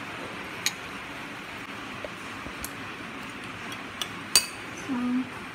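A metal spoon clinks against china plates and a sauce bowl a few times over a steady hiss, the sharpest clink about four seconds in. A short low hum follows near the end.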